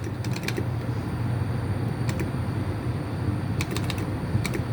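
A steady low hum with a few short clusters of light, sharp clicks.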